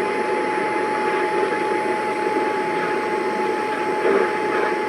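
Static-laden radio reception of an emergency alert broadcast: a steady hiss with a single constant whistle tone held beneath it.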